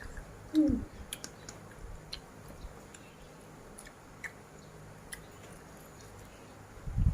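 A person chewing a mouthful of spicy seafood papaya salad, with scattered small clicks and crunches. A short falling tone is heard about half a second in.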